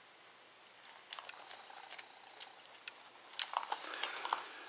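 Small clicks and taps of a disassembled MP3 player's plastic case and circuit board being handled, with a quick run of sharper clicks about three and a half seconds in.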